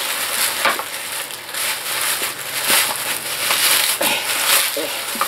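Clear plastic bag crinkling and rustling as it is pulled open and worked off a yellow plastic road lamp.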